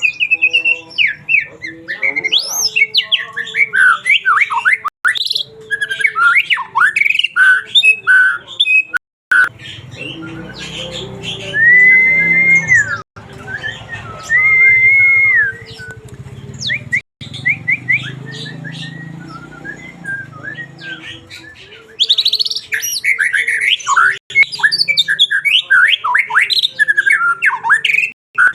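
White-rumped shama (murai batu) singing in full voice, pouring out its repertoire of mimicked songs: fast runs of varied whistles, trills and chattering notes. About halfway through the runs give way to two long, clear, level whistles, and then the rapid varied song resumes.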